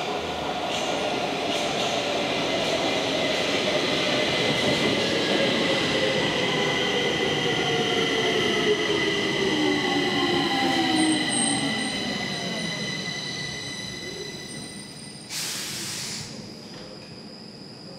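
Stockholm Metro C20 train pulling into the station and braking to a stop: the electric drive's whine falls steadily in pitch as it slows, over a steady high squeal, and fades as the train halts. A short hiss near the end.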